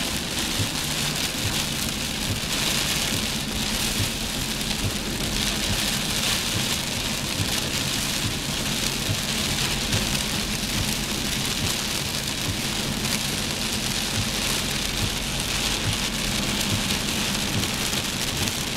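Heavy rain pelting a moving car, heard from inside the cabin, steady throughout over a low hum of road and engine.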